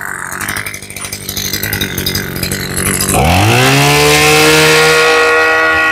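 Mitsubishi TL20 two-stroke brush-cutter engine running at low speed, then throttled up about three seconds in. Its revs climb quickly and hold at a high, steady speed.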